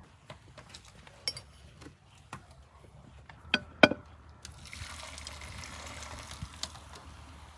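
Dark beer poured from two glass mugs into an Afghan cauldron: a steady splashing pour that starts a little past halfway. Before it, a few sharp clinks as the glass mugs are handled, the loudest just before the pour.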